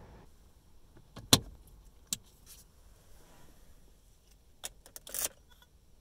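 A few sharp plastic clicks and knocks, the loudest about a second and a half in, then a quick cluster of clicks and a short rustling clatter near the end: a wiring harness and small circuit board being handled and fitted into the under-dash panel of a car.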